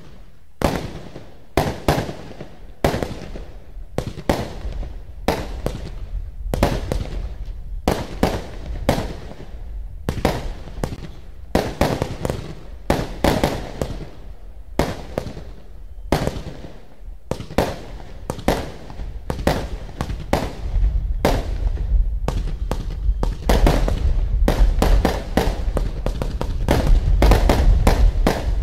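Lesli Dream Theater 96-shot, 20 mm compound firework cake firing shot after shot, about one or two sharp reports a second. In the last third the shots come faster, with a deeper rumble underneath.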